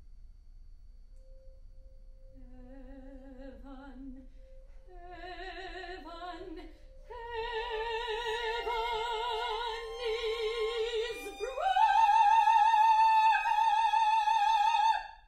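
Soprano voice singing a slow rising line with wide vibrato, from a quiet low note up through several steps to a loud high held note in the last few seconds, which stops abruptly. Beneath the early notes runs a steady, pure, vibrato-free tone, the sound of a rubbed wine-glass rim.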